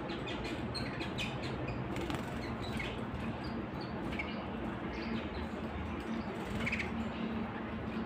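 Domestic canaries in a cage giving short, scattered chirps and calls rather than a continuous song, with a brief flutter of wings, over a steady low hum.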